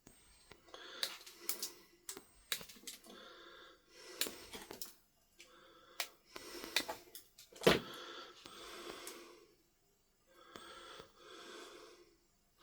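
Close, wheezy breathing from a man, in and out about every second and a half. Among the breaths come sharp clicks of small tools being handled, with one louder snap about three-quarters of the way in.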